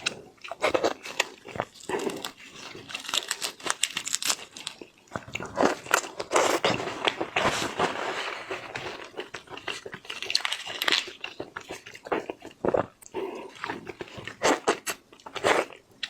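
Close-miked eating of shrimp and seafood: wet chewing and sucking with irregular crunchy bites.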